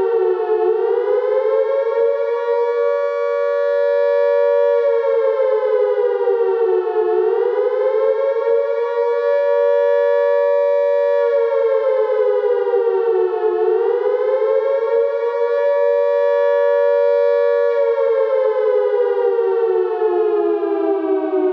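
British World War II–style air raid siren wailing. Its pitch dips and climbs back, holds high for a few seconds, then dips again, in cycles of about six and a half seconds, and starts a long, steady fall near the end. This rising-and-falling wail is the air raid warning signal.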